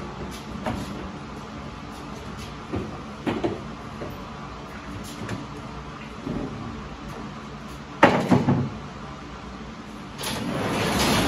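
Scattered knocks and clunks as a wooden desk carcass is wheeled on a furniture dolly, with a loud double knock about eight seconds in. Near the end, an overhead sectional garage door rattles along its tracks as it is pulled down.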